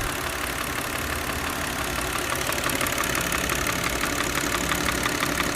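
Audi A6 (C6) 2.4-litre V6 idling with a rhythmic, evenly repeating knocking noise ('dang dang dang') from the intake manifold, a known common fault on this car that the mechanic traces to the manifold's vacuum-operated flaps.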